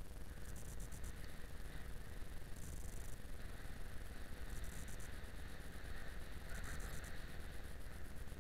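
Yamaha XJ6 Diversion 600 motorcycle riding along, heard as a steady low rumble of its inline-four engine and the wind. A high hiss comes and goes about every two seconds.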